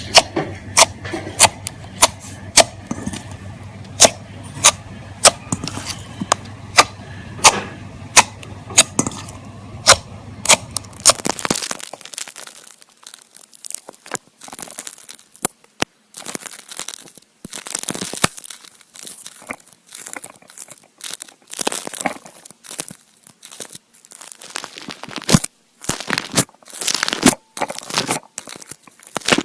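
Slime being played with: a run of sharp pops, about two a second, then, after a change about 11 seconds in, irregular crackling and crinkling squishes.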